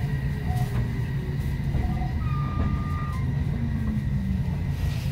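Odakyu electric train running, heard from inside the passenger car: a steady low rumble with a faint steady high tone above it.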